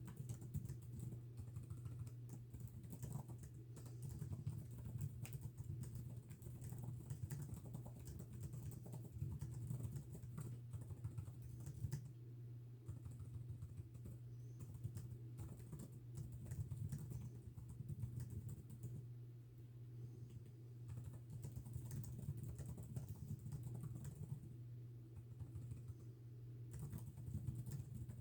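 Typing on a computer keyboard: rapid, irregular keystroke clicks in runs with brief pauses, over a steady low hum.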